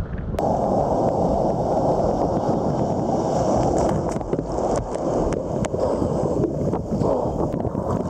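Breaking surf washing over a kayak: a loud, steady rush of whitewater and spray that starts suddenly about half a second in, with scattered sharp clicks.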